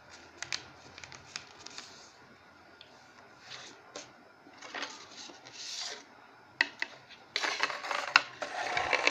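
A sheet of printer paper being folded and creased by hand on a wooden tabletop: scattered crinkles and rubbing as fingers press along the folds. The rustling grows louder and denser for the last couple of seconds as the paper is handled more quickly.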